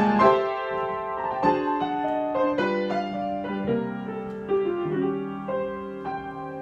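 Solo piano improvisation: unhurried chords and single notes struck about once a second and left to ring, growing gradually softer.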